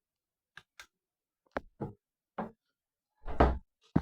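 A few light knocks and clicks, then a louder, longer knock near the end, like household handling noises in a small room.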